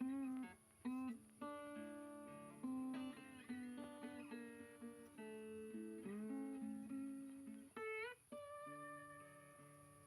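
Background music: plucked acoustic guitar notes, some sliding up in pitch, each ringing out and fading.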